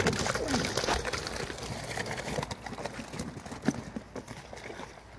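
Irregular footsteps and rustling as someone hurries across grass and gravel carrying a landing net, louder at first and growing fainter.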